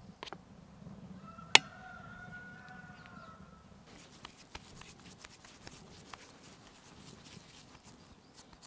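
A rooster crows once, about a second in, just as a sharp click sounds. From about four seconds in come soft, quick crackles of hands rubbing crumbly cottage cheese and flour together over an enamel bowl.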